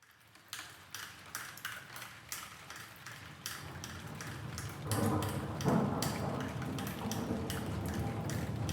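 Rain dripping in irregular single drops, with a low rumble of distant thunder coming in about halfway through.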